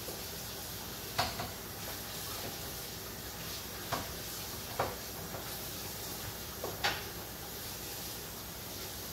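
Kitchenware being handled at a kitchen counter: four separate sharp knocks, a second or more apart, over a steady hiss.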